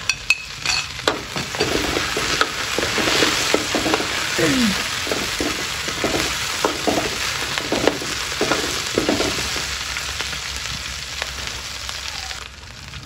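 Sliced lemongrass and kaffir lime leaves sizzling in hot oil in a wok while a metal spatula stirs them, with repeated scrapes and taps of the spatula against the wok. The sizzle dies down about twelve seconds in.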